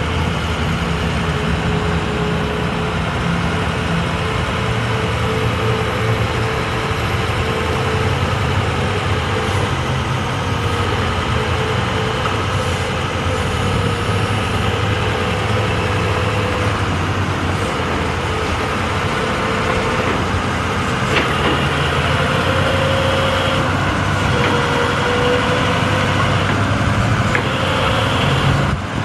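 International DT466 diesel engine running steadily, a low even note, while the truck's National Crane is worked, with a faint whining tone that wavers in pitch as the boom moves. A few sharp clicks come in the second half.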